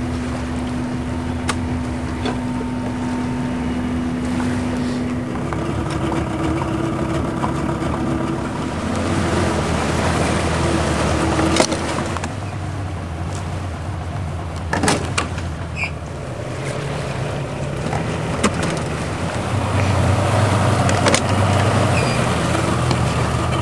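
A motor running steadily, its hum changing pitch a few times, with a few sharp clicks and knocks around the middle.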